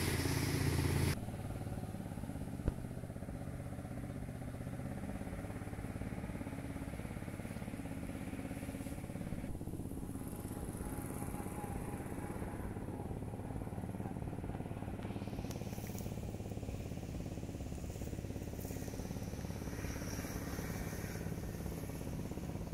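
Engine of a mud pump running steadily with an even hum. It drops in level about a second in, and there is one sharp click shortly after.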